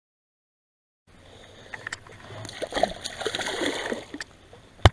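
Hooked bass thrashing and splashing at the surface right at the pond bank, starting about a second in, followed near the end by one sharp knock.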